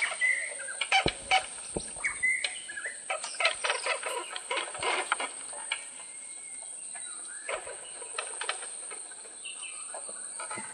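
Forest birds chirping, with repeated crackling and rustling of people pushing through undergrowth on foot.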